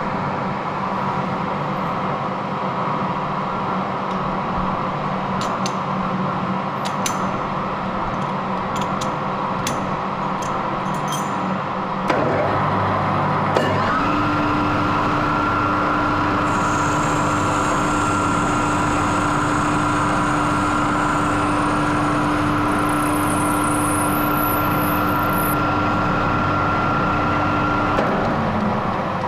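Lathe running steadily, with a few light clicks in the first part. About halfway through its sound changes and a steady whine sets in, stopping shortly before the end.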